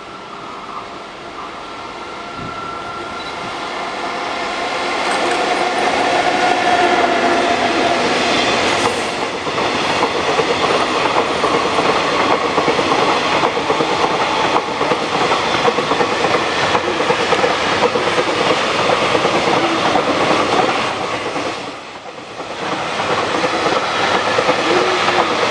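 Freight train hauled by a JNR Class EF65 electric locomotive passing close by. Its rumble grows louder over the first several seconds as it nears, then the wheels of the container flatcars and tank cars clatter steadily on the rails.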